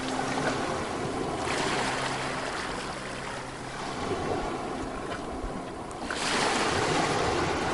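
Sea waves breaking on a beach: one breaks about a second and a half in, a louder one about six seconds in, with the wash of surf between.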